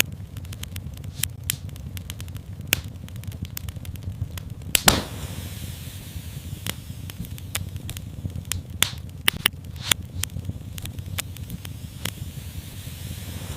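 Wood fire crackling in a fireplace: a steady low rumble of flames under many sharp snaps and pops. A louder pop comes about five seconds in, followed by a brief hiss, and a quick run of pops comes around nine to ten seconds.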